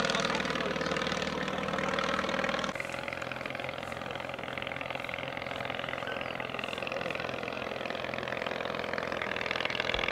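The English Electric Wren's tiny 3 hp 398cc ABC motorcycle-derived engine running steadily in flight. Its sound drops abruptly a little under three seconds in, then carries on at a lower level.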